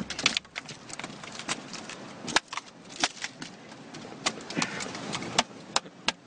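A run of irregular sharp knocks and slaps, a few a second, over a faint background hiss.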